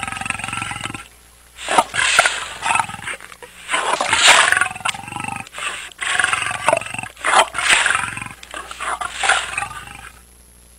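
Lion roaring in about five bouts with short breaks between them, falling quiet near the end.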